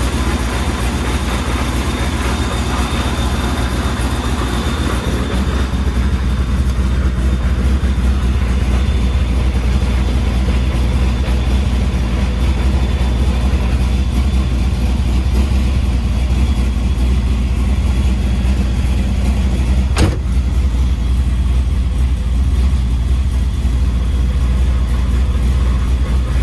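1994 Corvette's LT1 V8 idling steadily with the ZF manual transmission in neutral, a mild gear rattle from the transmission mixed in: neutral gear noise typical of a single mass flywheel with an unsprung clutch in place of the stock dual mass flywheel. One sharp click about twenty seconds in.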